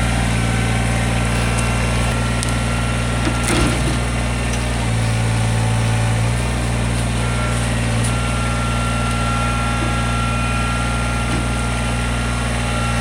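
Kubota BX20 sub-compact tractor's three-cylinder diesel engine running steadily, its note swelling briefly about five seconds in. There is a faint knock a little after three seconds.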